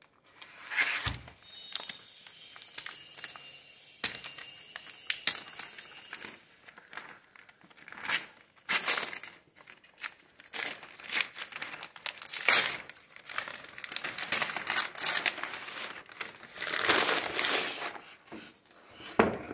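Paper courier mailer bag being torn open and crinkled by hand: repeated rips and rustling in irregular bursts.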